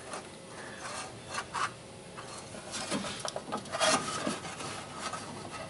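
Fuel line rubbing and scraping against the car's underbody as it is fed up and routed by hand, in irregular strokes with a few louder ones around the middle.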